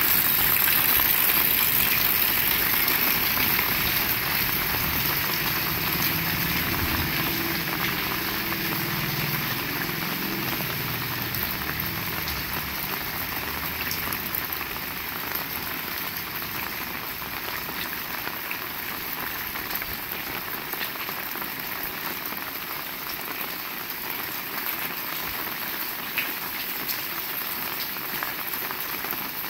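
Heavy rain falling steadily, a dense even hiss that grows a little quieter over the first twenty seconds.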